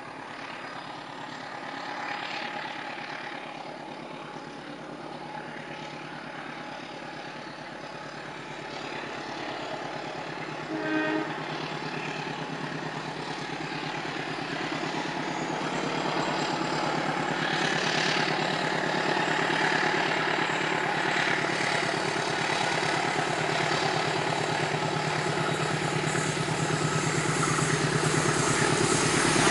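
CC 204 diesel-electric locomotive hauling a passenger train, its engine drone growing steadily louder as it approaches. A short horn toot sounds about eleven seconds in.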